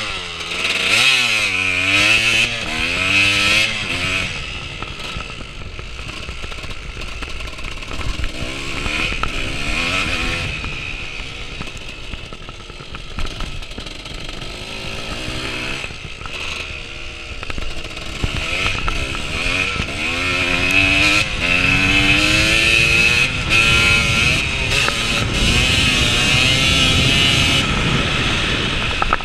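Dirt bike engine running under a rider on a track, revving up and down over and over as the pitch climbs and falls. It is loudest in the last third.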